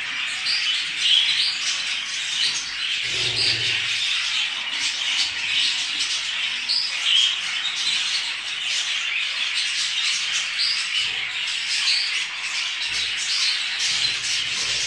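Many budgerigars chirping and chattering together: a steady warble with repeated short, high chirps.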